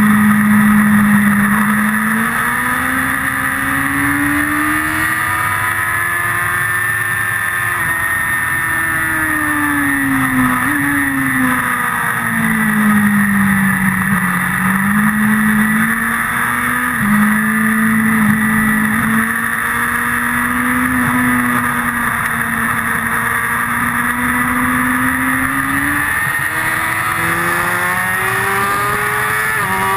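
Motorcycle engine at speed on a race track, heard from the bike's onboard camera, its revs swinging up and down several times with throttle and gear changes through the corners, over a steady rush of wind noise.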